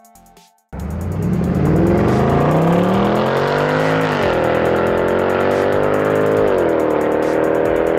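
Mercedes-Benz C63 AMG's 6.2-litre V8 accelerating hard away from a standing start, its note climbing under a second in. The pitch drops at an upshift about four seconds in, climbs again and drops at a second upshift about six and a half seconds in, then holds a fairly steady note.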